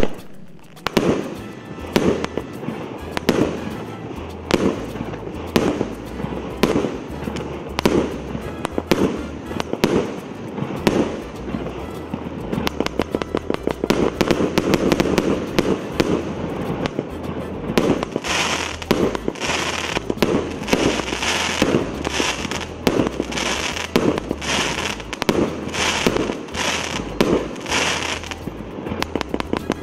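A 204-shot, 1.25-inch consumer firework cake firing. It opens with one very loud shot, then fires shots about once a second. Around the middle the shots come in a rapid dense string, and in the second half the bursts come about twice a second, each with a bright crackle.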